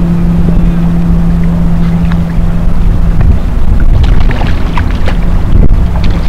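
Steady drone of a boat motor over heavy wind rumble on the microphone; the motor's hum fades about three seconds in, leaving the wind rumble and a few light knocks.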